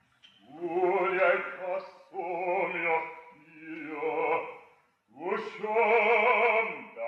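Operatic bass voice singing with a wide vibrato, in four phrases separated by brief pauses. The last phrase is the longest and fullest. The orchestra is only faintly heard beneath the voice.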